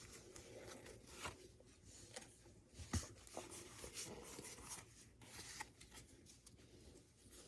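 Faint scattered rustles and small clicks of a foil booster pack and trading cards being handled, with the sharpest tick about three seconds in.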